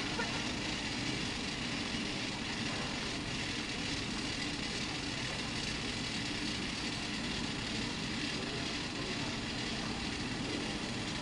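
Steady, even mechanical drone of airport apron machinery around a parked Airbus A319 at the gate, with no distinct events.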